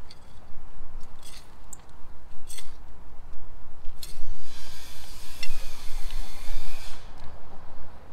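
Plastic anti-slug rings being handled and pushed into the soil around seedlings: a few light clicks and taps, then a scraping rustle lasting a couple of seconds from about halfway through.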